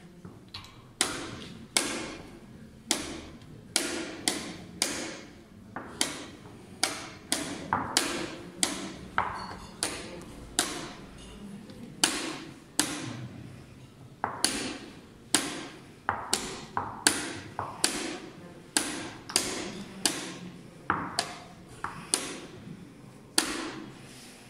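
Quick taps of a blitz chess game: wooden chess pieces set down on the board and the chess clock pressed after each move, about two sharp taps a second in an uneven rhythm.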